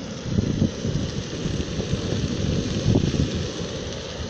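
Wind buffeting the microphone: an uneven low rumble in gusts over a steady faint hiss.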